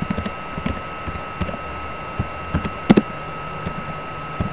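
Computer keyboard being typed on: a few scattered key clicks, with a sharper pair about three seconds in, over a steady faint high-pitched hum.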